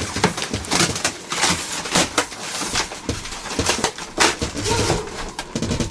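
Irregular knocks, bumps and scraping of a heavy treadmill being handled and shifted by hand.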